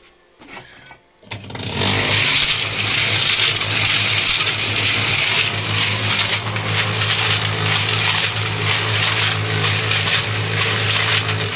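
Electric concrete mixer switched on, starting up about a second and a half in and then running steadily: a low motor hum under the rushing, churning noise of the turning drum. It is running off an inverter fed by a solar-charged battery.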